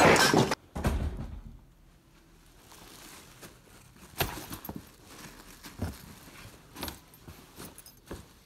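A loud, noisy burst that cuts off suddenly about half a second in, followed by quiet rustling of clothes and fabric being handled and pushed aside, with a few soft knocks and clicks.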